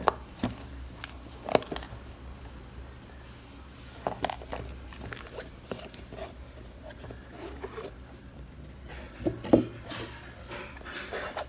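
A product box being handled and opened on a table: scattered taps, clicks and rustles, with sharper knocks about 1.5, 4 and 9.5 seconds in.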